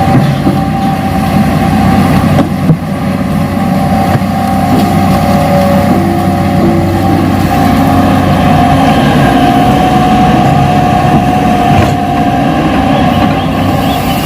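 RC model Hitachi excavator running steadily: a constant engine-like drone with a held whine over it.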